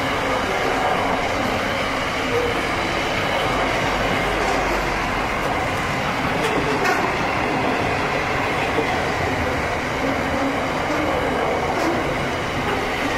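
Freight train wagons rolling past close by: a steady, loud rumble and rattle of steel wheels on the rails, with a few sharp clicks.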